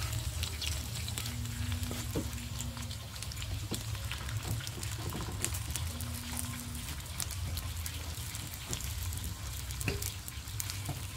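Steady rain: a dense hiss full of crackling drops over a low rumble.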